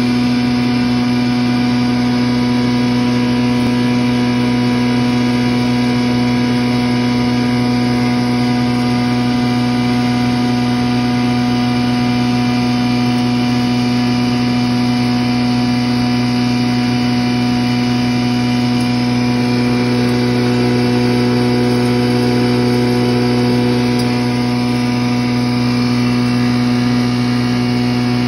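Busa grinder, a straw pulverizer, running steadily while dry straw is fed into its hopper and ground, with a strong low hum under a dense grinding whir.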